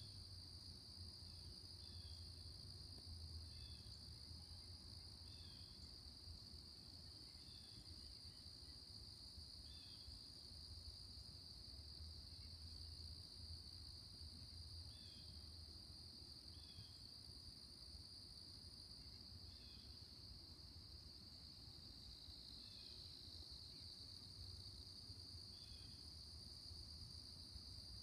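Faint, steady high-pitched trilling of an insect chorus, crickets or similar, with short falling chirps every couple of seconds and a low rumble underneath.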